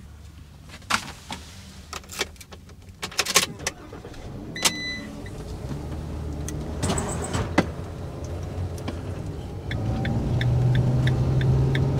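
Ram ProMaster camper van driving: engine and road noise rumbling steadily, growing louder about ten seconds in as the van gets up to highway speed, with a run of light, evenly spaced ticks near the end. Scattered clicks and knocks come in the first few seconds.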